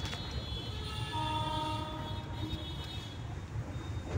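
A horn sounds one steady held note for about two seconds, starting about a second in, over a steady low rumble.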